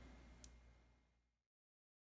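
Near silence: faint room tone fading out, with one small click about half a second in, then complete silence.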